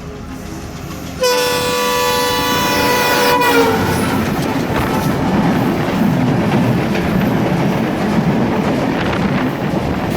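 A locomotive horn blasts for about two seconds, its pitch dropping as it cuts off, followed by the steady rumble and wheel clatter of a train running past on the crossing track.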